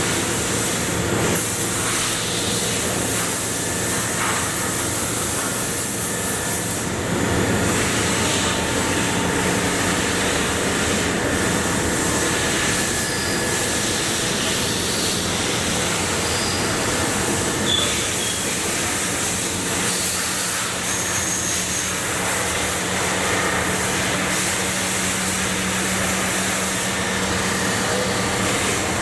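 Industrial machinery running steadily: a constant hum under broad mechanical noise, with a few brief high-pitched squeaks.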